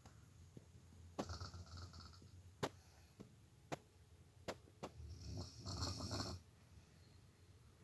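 Snoring: two snores, one about a second in and a longer, louder one about five seconds in, with a few sharp clicks between them.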